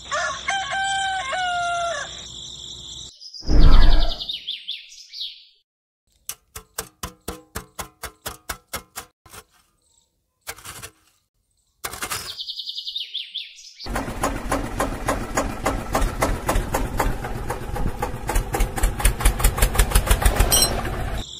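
A rooster crows over a steady chirring of crickets, then comes a loud whoosh, a run of quick clicks, another whoosh, and a long stretch of rapid clicking and rattling that grows louder toward the end.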